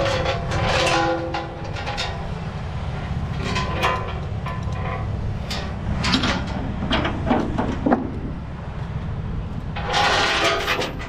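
Steel tie-down chain clinking and clanking in irregular bursts as it is handled and hooked, with a few brief ringing metallic notes, over a steady low rumble.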